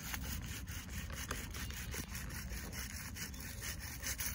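PSKook bow drill being worked: the bow sawing back and forth to spin the wooden spindle against the hearth board, a quick, even rubbing of wood on wood.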